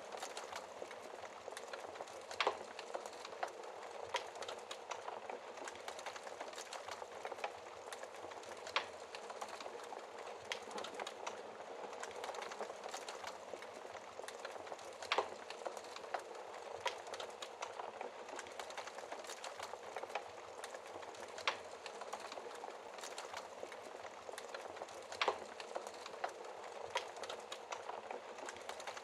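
Fireplace fire crackling: a steady soft hiss full of small ticks, with a sharp louder pop every few seconds.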